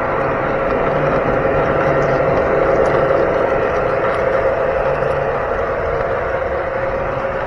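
O scale model train running on its track, heard from a camera riding in one of its gondola cars: wheels rolling on rail joined by a steady motor-and-gear whine.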